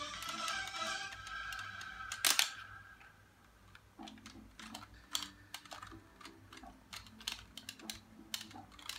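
Music for about the first two seconds, cut off by a sharp click; then scattered small clicks and taps of plastic toy truck parts being handled and screwed together.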